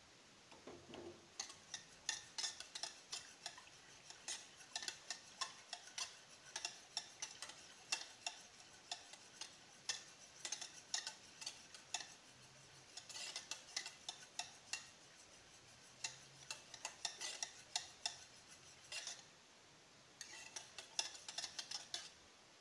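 Wire whisk beating a thin cornstarch mixture in a nonstick saucepan, the wires clicking and scraping quickly against the pan to dissolve the cornstarch. It starts about a second in and pauses briefly about three seconds before the end.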